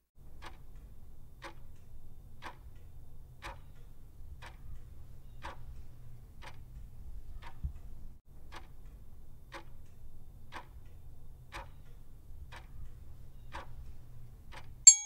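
Clock-tick sound effect of a quiz countdown timer, one tick a second, counting down the time to answer, over a faint low rumble. A bright ding sounds right at the end as the countdown reaches zero.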